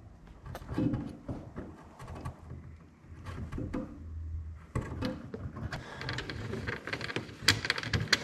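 Workshop handling sounds: scattered knocks and clicks, then from about halfway a dense run of rapid clicking and rasping that carries on past the end.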